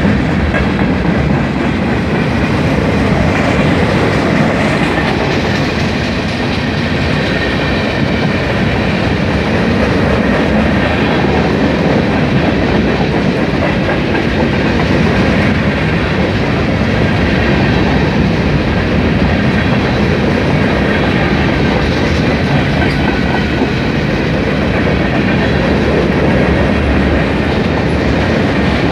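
Norfolk Southern freight train's cars rolling past: a loud, steady rumble of steel wheels on the rails with clickety-clack from the rail joints.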